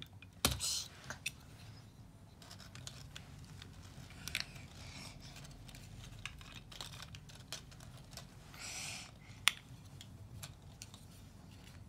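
Small toy monster trucks clacking as they are picked up and set down on a carpet. There are a few sharp clicks, the loudest about half a second in, between quieter handling noises.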